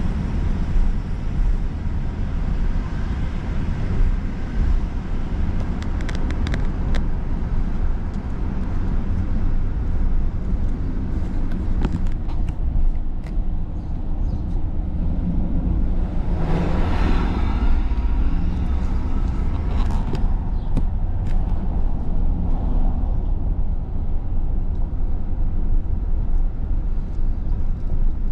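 Outdoor street ambience: road traffic with a steady low rumble, and a vehicle passing close about two-thirds of the way through.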